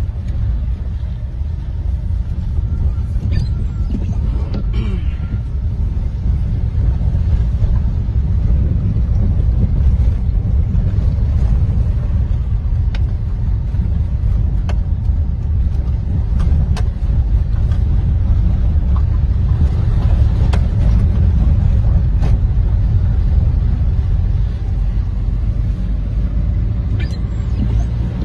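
Steady low rumble of a vehicle driving along a road, heard from inside the cabin, with a few faint clicks here and there.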